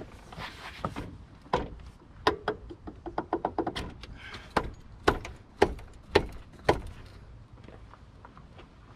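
Irregular metal clicks and knocks as a new AC compressor clutch pulley is worked by hand onto the compressor's front housing. The loudest are five sharp taps about half a second apart in the second half, followed by quieter handling.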